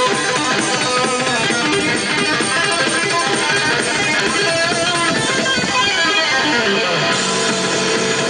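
Guitar-led music playing at an even level.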